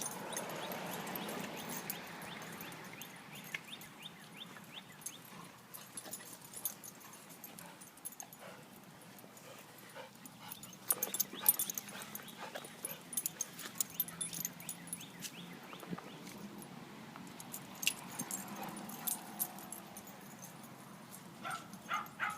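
A dog making sounds in play, some of them drawn out, with many short, light clicks scattered throughout, thickest about halfway through.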